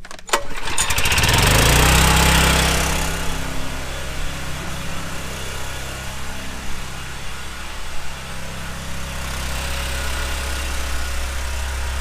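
Small gas generator engine starting up about half a second in, loudest for a second or two as it catches, then running steadily.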